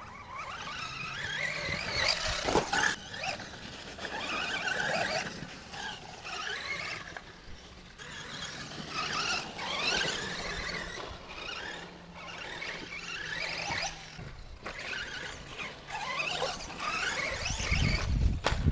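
Electric RC truck's 9-turn brushless motor whining, the high pitch gliding up and down as the truck speeds up and slows, over several runs with short dips between them.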